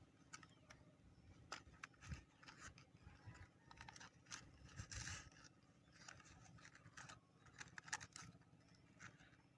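Faint, scattered clicks and short scratching noises of hand work, with a slightly busier stretch about halfway through.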